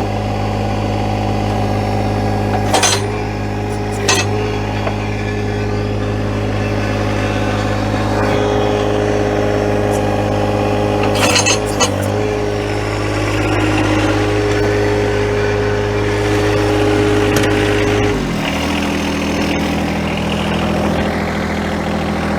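John Deere 1025R compact tractor's three-cylinder diesel engine running steadily under throttle, with a few sharp metallic clinks from the backhoe and loader. About four seconds before the end the engine speed drops to a lower, slower note.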